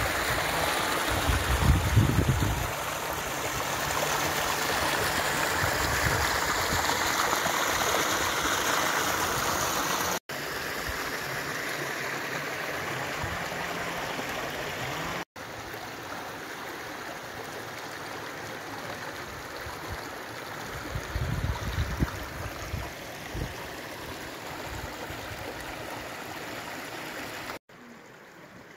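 Running water of a mountain stream: a steady rushing hiss that cuts off and resumes at a lower level three times. Low rumbling bumps come in near the start and again about two-thirds of the way through.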